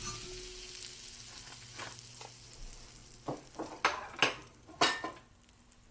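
Butter sizzling in a hot modern Lodge cast iron pie pan, fading in the first seconds, then several sharp scrapes and clicks of a metal utensil against the pan's rough cast iron surface.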